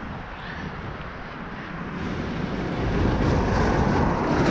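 Road traffic noise with wind on the microphone, rising to a louder low rumble in the second half as a lorry towing a loaded trailer passes close by.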